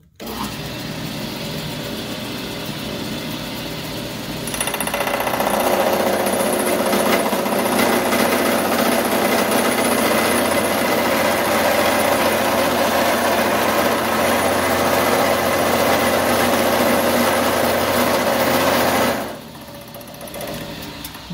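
A milling machine's spindle starts, and about four and a half seconds in the cutter bites into a hard steel block, giving a loud, dense chattering cut. A couple of seconds before the end the cutter comes out of the work and the machine runs on unloaded, much quieter. The machine is struggling with a block tough enough to have already destroyed a carbide end mill.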